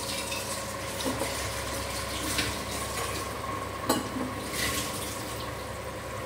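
Water with vegetables bubbling at the boil in an aluminium kadai: a steady bubbling with a few short pops, over a faint steady hum.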